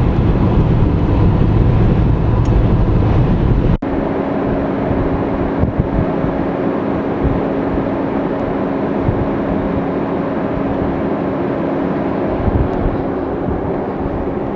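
Steady road and engine noise of a car driving at speed, heard from inside the cabin. About four seconds in the sound breaks off sharply and goes on as a slightly quieter drone with a steady low hum.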